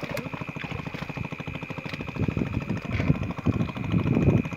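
A small engine running steadily, with a fast even beat. From about halfway through, water splashes and sloshes loudly in irregular surges as the net is hauled through the pond.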